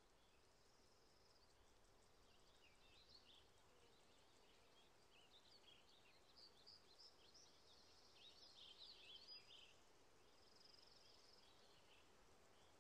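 Faint birdsong: many short high chirps, thickest in the middle, with a brief trill near the start and another near the end, over a steady low hiss.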